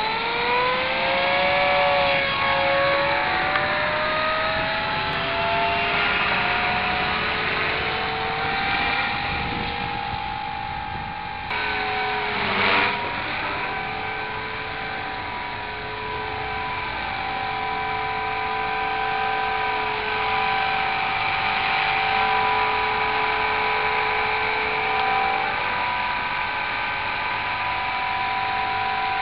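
Small 300-size RC helicopter with wooden main blades: its motor and rotor whine rises in pitch over the first few seconds as the head spools up, then holds steady, dipping and rising in pitch a few times. A brief rush of noise about 13 seconds in.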